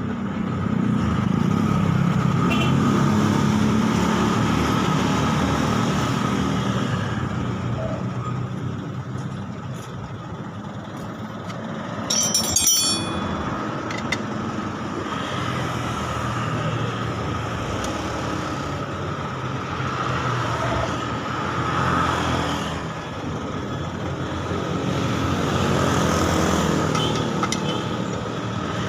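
Small two-stroke engine of a Yamamaxpro 1-inch irrigation water pump running on test, its loudness swelling and easing a few times. A short sharp metallic clatter about twelve seconds in.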